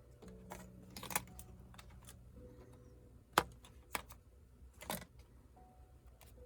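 Sharp small clicks and taps from a laptop being taken apart by hand, five or so spread unevenly over a few seconds, the loudest about three and a half seconds in.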